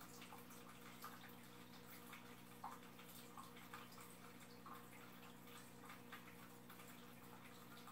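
Faint water trickling and dripping in an aquarium, with irregular small drips and ticks over a steady low electrical hum.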